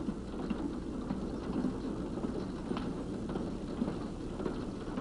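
Empty freight gondola cars rolling along the track: a steady rumble with scattered wheel clicks, over a low steady hum.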